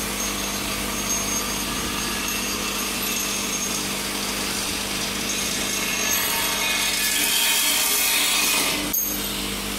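Vibratory bowl feeder running with a steady buzz as a compressor foot travels up its spiral track. The sound grows somewhat louder and brighter about six seconds in, with a brief click near the end.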